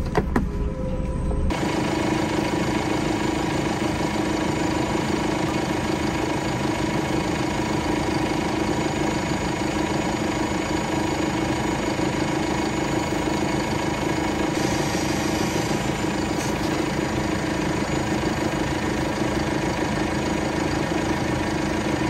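Farm tractor engine running steadily at a constant speed while the front-end loader holds a round hay bale.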